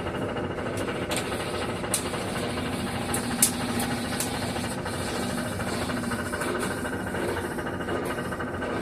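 Electrolux Turbo Economia 9 kg top-loading washing machine running its spin cycle: a steady motor hum with a few scattered clicks and knocks, the sharpest about three and a half seconds in.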